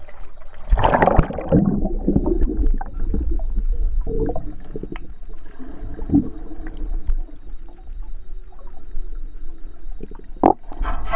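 Water sloshing and gurgling with a low rumble, as picked up by a camera in or at the water. A loud surge of water comes about a second in, and scattered sharp knocks follow.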